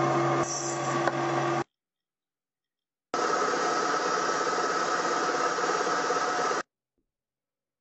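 A metal lathe runs as a brass part is turned with a hand-held blade against it; the sound cuts off suddenly about a second and a half in. After a silent gap, a milling machine's end mill runs, cutting a slot in a brass part with a steady high tone over the cutting noise, and then stops abruptly.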